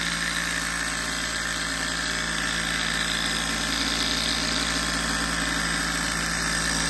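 Enjomor horizontal-flywheel hot-air Stirling engine running very fast on its alcohol burner: a steady, very noisy mechanical whir with a high steady tone. It is running dry, with no graphite yet put in its cylinder.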